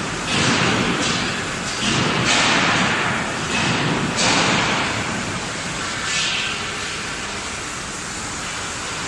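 Bus body frame welding fixture at work: about five sharp bursts of hissing air, each dying away over about half a second, with low thuds from the clamping arms, typical of pneumatic clamps actuating. The bursts come mostly in the first two-thirds, then only the steady hum of the factory hall is left.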